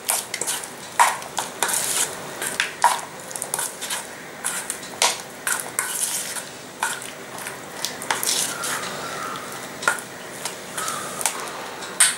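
Metal spoon stirring chunks of boiled arbi through thick besan batter in a stainless steel bowl: irregular clinks and scrapes of the spoon against the bowl, with a few brief metallic rings.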